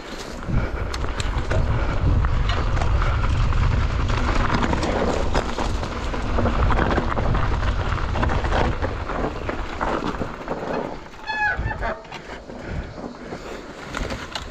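Mountain bike being ridden on a dirt trail: wind buffeting the camera microphone, with tyre and trail rumble. Near the end comes a short high-pitched squeal, and then the riding noise drops away.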